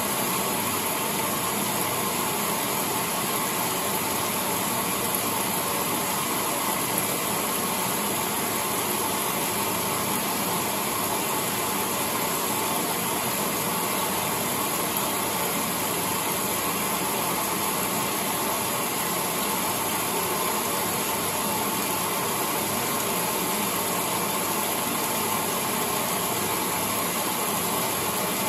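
Late-1970s Maytag A806 top-loading washing machine running steadily with a large load of sheets: an even whir and wash of water, with no change in pace.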